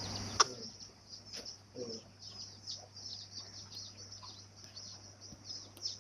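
Many small birds chirping continuously, a dense run of quick, high, downward-sliding chirps overlapping one another. A sharp click about half a second in, and a steady low hum underneath.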